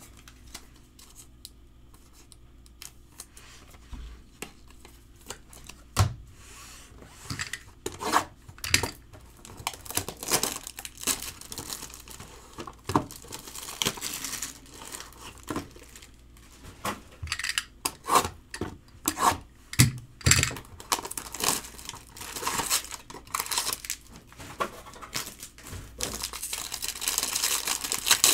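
Plastic shrink-wrap crackling and tearing as it is pulled off a trading-card box, with scattered clicks from cardboard and card holders being handled. It starts sparse and becomes a dense run of crinkling in the second half.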